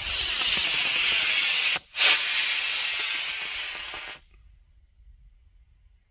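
Boosted Bertha two-stage model rocket launching on black-powder motors. The C6-0 booster hisses loudly for nearly two seconds and breaks off at staging. The sustainer motor then lights with a fresh hiss that fades as the rocket climbs away, dying out about four seconds in.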